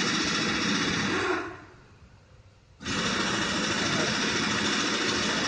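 Toyota Land Cruiser Prado engine running with a newly fitted timing belt. It cuts out and dies away about a second and a half in, then is running again, starting suddenly near the three-second mark.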